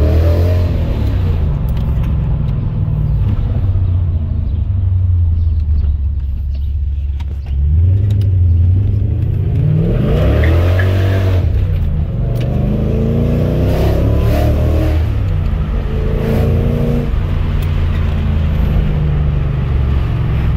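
Lexus SC400's V8 engine under way, heard from inside the cabin, with road noise: the revs climb and drop several times as the car accelerates and shifts through its five-speed manual gearbox.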